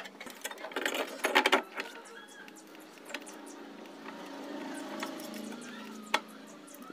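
Handling noise from fitting an air cooler motor: a burst of rattling and scraping of parts, then quieter handling and a single sharp click a little after six seconds in.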